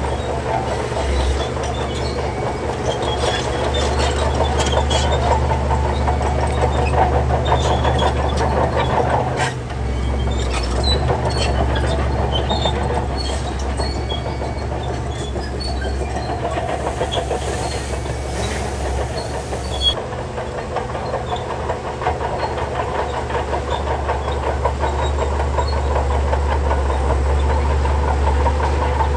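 Shantui DH17C3 crawler bulldozer working stone fill: its diesel engine runs steadily under a continuous clatter of tracks and crunching, rattling stone. The level drops briefly about nine and a half seconds in.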